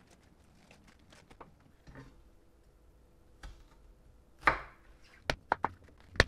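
Kitchen knife cutting napa cabbage leaves on a wooden cutting board: a few faint rustles and clicks, then a louder crunch about four and a half seconds in, followed by several sharp knife taps on the board near the end.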